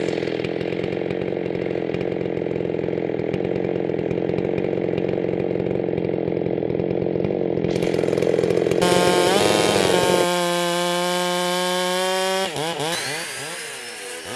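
Husqvarna 390XP two-stroke chainsaw running hard at high revs; about nine seconds in its note turns cleaner and steadier, then near the end it wavers and fades away.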